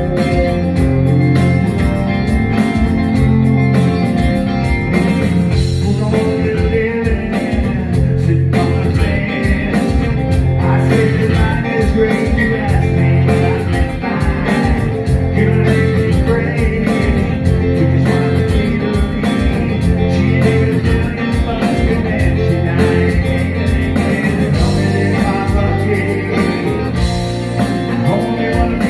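Live amplified band music: electric guitar and electric bass over a steady beat, with a man singing into a microphone.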